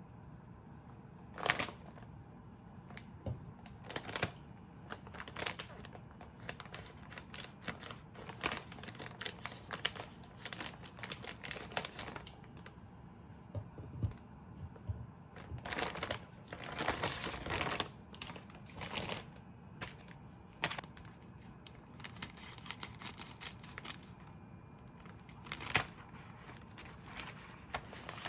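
Irregular light clicks, taps and rustling of objects being handled at close range, with a cluster of longer scraping or crinkling sounds around the middle.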